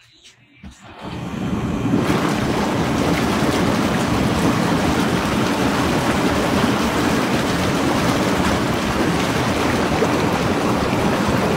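Hot tub jets switching on about a second in, building quickly to a steady rush of churning, bubbling water.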